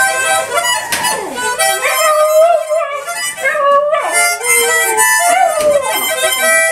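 Harmonica played in held chords that change every second or so, with a border terrier howling along, its howl wavering up and down in pitch.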